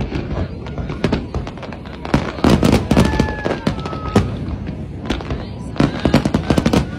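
Fireworks display: aerial shells bursting in a rapid, irregular string of bangs and crackles.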